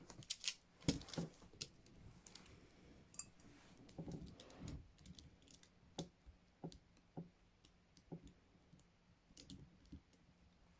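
Faint scattered clicks and small metallic knocks of rigid handcuffs being handled and opened, a few close together at the start and single clicks spaced out later, with a soft rustle of handling in between.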